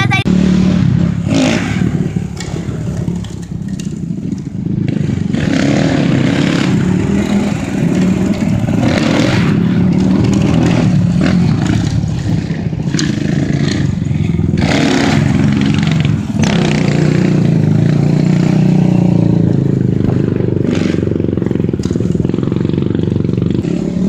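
Small off-road engines of a dirt bike and a quad running, a steady low drone with several brief louder surges of revving.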